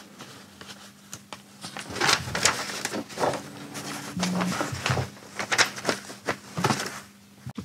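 Sheets of archive paper being handled and leafed through: a run of short rustles and crackles over a faint steady hum.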